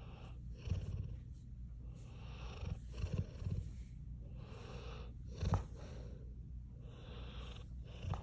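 Large jowly dog snoring in deep sleep: slow, noisy breaths with loud, low, rattling snorts every few seconds, the loudest about halfway through.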